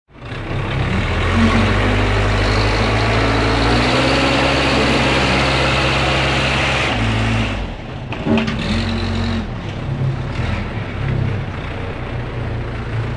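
Heavy vehicle engine running steadily, its sound changing and dropping slightly in level about seven and a half seconds in.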